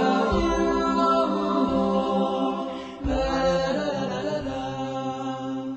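Background vocal music: a devotional nasheed sung in long, held notes, with a new phrase starting about three seconds in.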